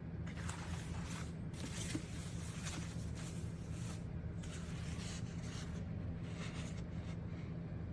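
Irregular short scraping and rustling strokes from handling a self-adhesive faux leather repair patch, over a steady low hum.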